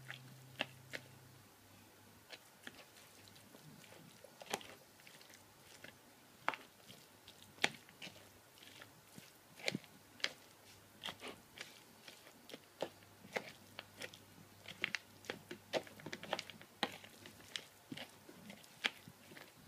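A spoon stirring dry kibble in a plastic pet bowl: faint, irregular clicks and crunches as the pieces knock together and against the bowl, coming more often in the second half.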